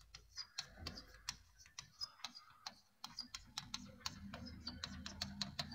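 Chalk tapping and scratching on a blackboard as words are written: a faint, quick, irregular run of clicks.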